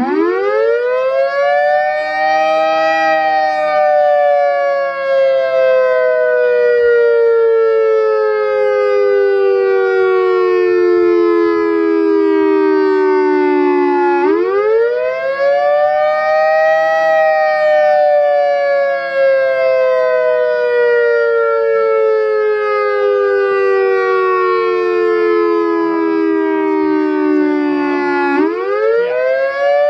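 Federal Signal EOWS 612 electronic siren sounding a slow wail, loud. Its tone sweeps up quickly, then glides slowly down over about eleven seconds. Two full cycles play, and a third rise begins near the end.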